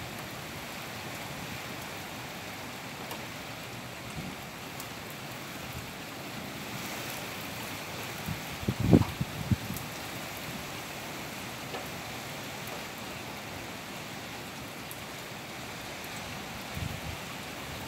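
Steady hiss of heavy, wind-driven hurricane rain falling on a street and lawns. About halfway through, a brief gust of wind buffets the microphone with a few low rumbling thumps.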